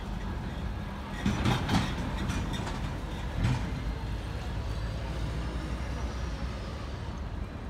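City street traffic, led by a heavy truck's engine rumbling low and steady as it drives past. A few short, sharp noises break in about a second and a half in and again about three and a half seconds in.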